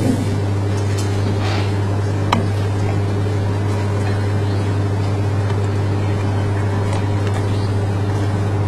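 Steady low hum, with a couple of faint clicks about one second and two and a half seconds in.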